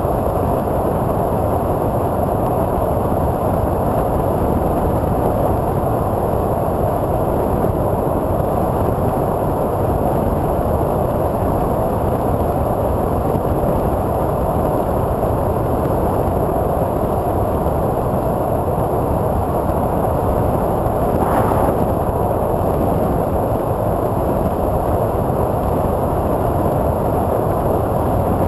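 Steady rush of wind and propeller noise picked up by a camera on board a twin-motor electric RC plane, a TwinStar II, in flight with 8x6 propellers. One brief swell comes about three-quarters of the way through.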